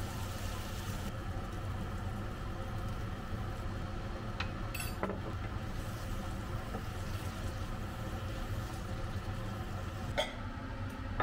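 A steady low mechanical hum under vegetables and tomato sauce cooking in a pan, with a few light clicks of tongs and a spatula against the pan about halfway through and again near the end.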